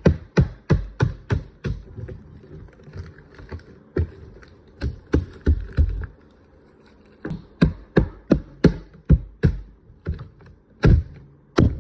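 A quick series of sharp taps and knocks, about two to three a second, coming in runs with short pauses, as of something hard being struck repeatedly.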